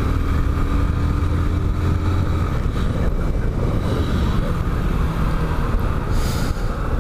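Motorcycle engine running at a steady note under road and wind noise while riding; the engine note drops away about two and a half seconds in. A short hiss comes near the end.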